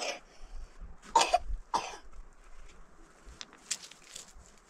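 A person coughing in short separate bursts, several times, the two loudest coughs a little over a second in.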